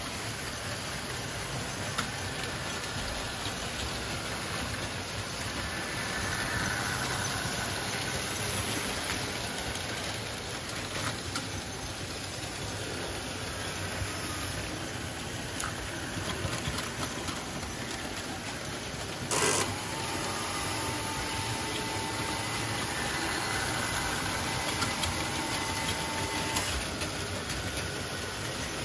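Märklin HO model trains running on the layout: a steady rumble of their motors and wheels on the track. A sharp click comes about 19 seconds in, followed by a thin whine for about six seconds.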